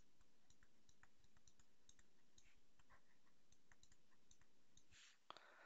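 Faint, irregular clicks and taps of a stylus on a tablet or pen-display surface during handwriting, over a quiet room background, with one brief louder sound near the end.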